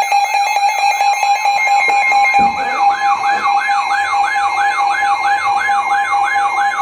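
Electronic siren warbling in fast rising-and-falling sweeps, about three to four a second, over a steady high tone that pulses rapidly at first. The sweeps grow louder about two and a half seconds in.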